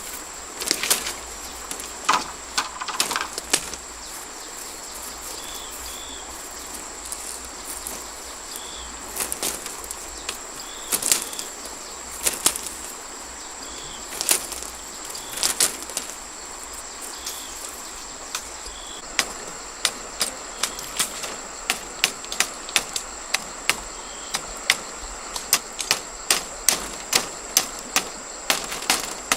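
Repeated sharp knocks or taps, irregular at first and then coming about twice a second in the second half, over a steady high-pitched insect drone.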